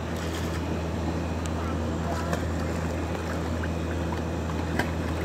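A steady low machine hum runs throughout, with light water splashing as a Great Pyrenees puppy paddles in a plastic stock tank.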